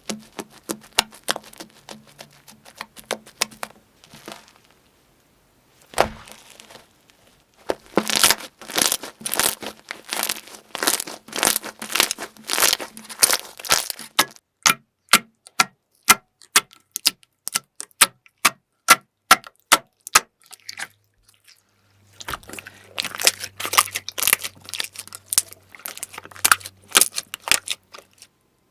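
Crisp crackling and snapping from crunchy slime or dry clay being squeezed and pulled by hand: many sharp clicks in quick runs, broken by two short pauses.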